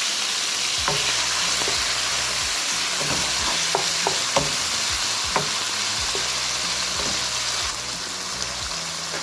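Shredded beef sizzling in hot vegetable oil in a pan, a steady hiss of frying meat, with a few sharp knocks of a utensil against the pan as it is stirred. The sizzle eases a little near the end.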